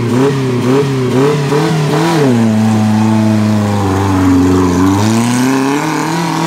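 Suzuki Jimny's engine revving under load as it churns through deep mud, the revs wavering quickly up and down, then dropping to a steady lower pitch about two seconds in and climbing again near the end.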